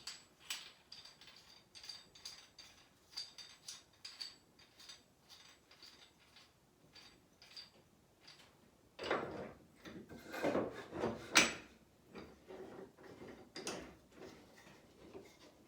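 Scattered light clicks and knocks of a miter saw and a piece of scrap wood being handled and adjusted, the saw not running, with a cluster of louder knocks and scrapes about nine to eleven seconds in.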